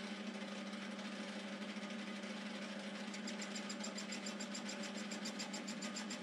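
Bench metal lathe running with its spindle turning a large round workpiece: a steady machine hum. About three seconds in it is joined by a fast high ticking, roughly six ticks a second.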